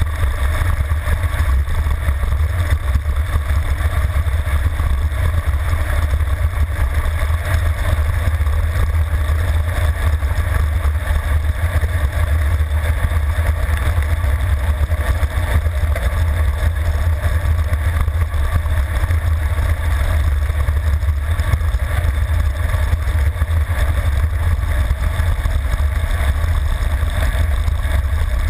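Rushing wind buffeting the microphone of a handlebar-mounted camera on a road bike descending at high speed: a loud, steady, deep rumble with a hiss above it.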